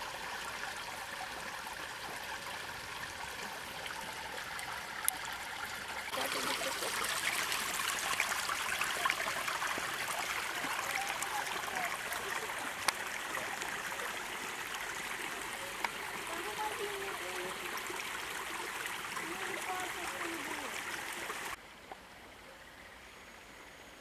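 Polluted wastewater running steadily. It gets louder about six seconds in and cuts off shortly before the end, leaving a much quieter background.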